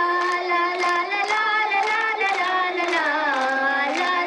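A high voice singing a folk song in long held notes that slide between pitches, over a steady light beat.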